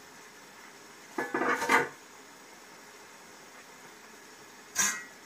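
Metal kitchenware clanking on an aluminium cooking pot: a short run of clanks with a little ring about a second in, and one sharp clink near the end.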